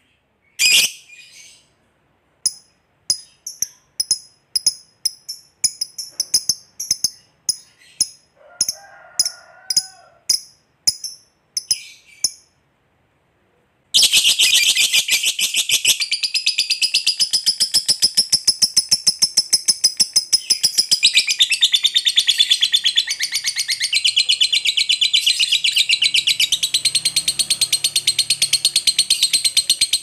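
Lovebird giving short, separate high chirps, then after a brief silence breaking into a long, unbroken, very rapid chatter, the 'ngekek panjang' prized in fighter lovebirds, which carries on to the end.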